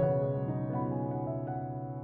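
Background music: a piano playing slow, held chords.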